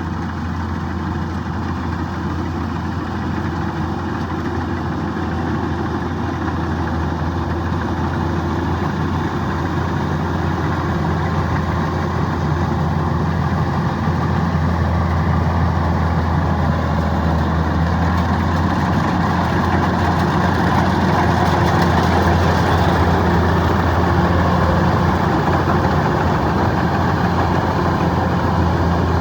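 Kubota DC-105X combine harvester's diesel engine running steadily with a continuous low hum, gradually getting louder.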